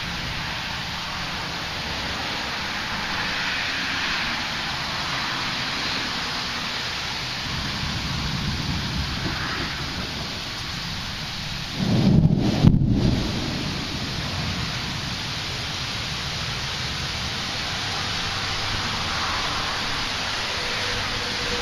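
Steady rain hissing, with a loud thunderclap rumbling low about twelve seconds in and lasting a second or two.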